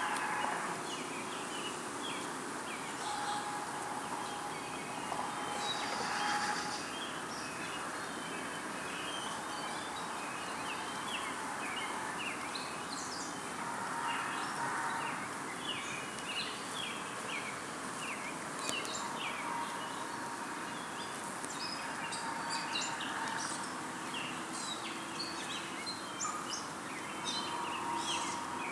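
Outdoor ambience of many small birds chirping, with short high chirps coming thick and irregular throughout over a steady background hiss.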